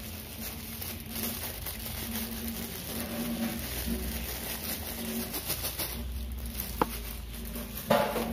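A dove cooing in low, repeated hoots, with one brief click about two-thirds of the way through.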